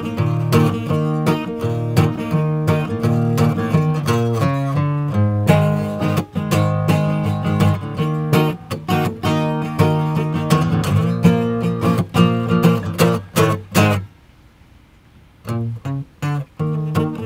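Acoustic guitar playing an upbeat rhythmic tune of strummed chords and picked notes. It breaks off about three-quarters of the way through and starts again a second or so later.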